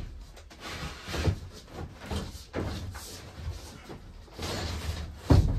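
MDF ceiling panel knocking and scraping against the wooden ceiling framing as it is pushed up into place overhead, a handful of separate knocks with a loud thump near the end.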